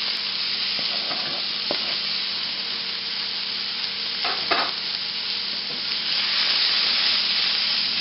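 Spinach, onion and minced garlic sizzling in hot olive oil in a stainless steel frying pan, with a few light knocks of a wooden spoon. The frying hiss grows louder about six seconds in, the pan hot enough that the spinach starts to burn.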